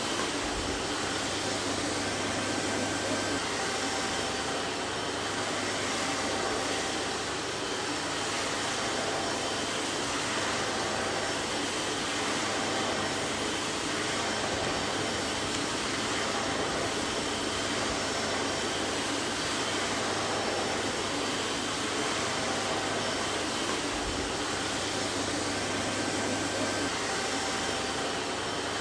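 Vacuum cleaner running steadily: an even whooshing rush of air with a low motor hum and faint steady whine tones.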